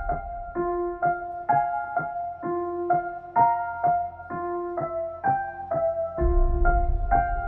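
Background music: a piano playing a slow, repeating figure of notes, about two a second, with a low bass coming in near the end.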